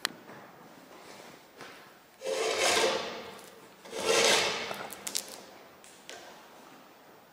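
Two loud bursts of noise about a second apart, each lasting about a second and fading out, followed by a few sharp clicks.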